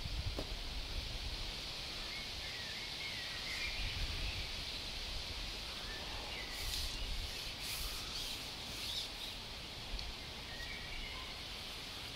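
Outdoor ambience: small birds chirping now and then over a steady hiss and a low rumble, with a few brief rustles about two-thirds of the way through.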